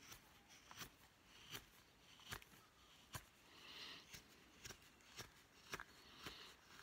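Carving knife taking short slicing cuts on a wooden spoon blank: a string of faint, sharp clicks roughly every half second, with a few soft shaving scrapes between them.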